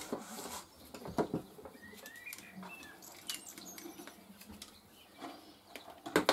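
Pliers worked against a small plastic LED lamp housing and its cable: a scattered run of light clicks, taps and rustles, with a few small squeaks around two seconds in and a denser cluster of clicks near the end.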